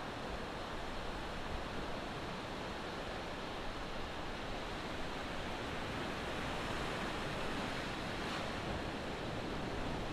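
Ocean surf washing onto the beach: a steady rush of breaking waves that swells a little past the middle.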